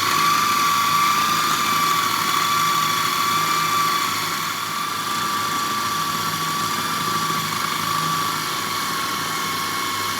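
Electric food processor running at full speed, its motor giving a steady whine as it blends sugar and lemon zest together.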